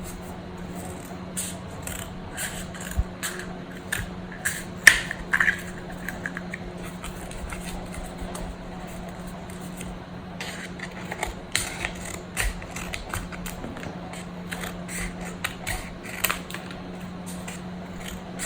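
Irregular small scrapes, clicks and rustles of objects being handled, over a steady low hum.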